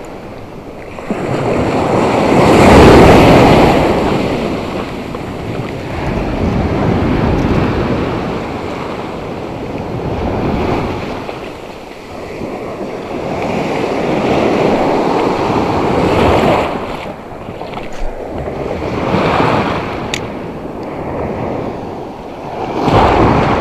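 Sea surf breaking and washing in the shallows, swelling and fading in surges every few seconds.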